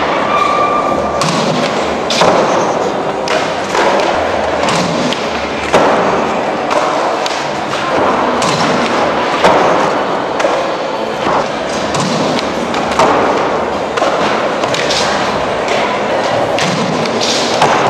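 Skateboards in an indoor skatepark hall: a steady din of wheels rolling on the floor and ramps, broken by a dozen or so sharp clacks and thuds of boards landing and slapping down, echoing in the large hall.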